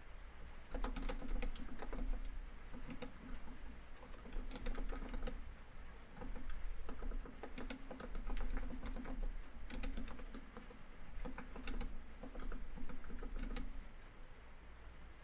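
Typing on a laptop keyboard in bursts of quick key clicks with short pauses between, over a steady background of rain on a tin roof.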